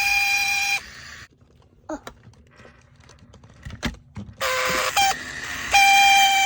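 A steady electronic beep, like a toy horn, sounds for under a second and stops abruptly. Then comes a quieter stretch of small plastic clicks, then a louder rattling buzz, and the same beep again near the end.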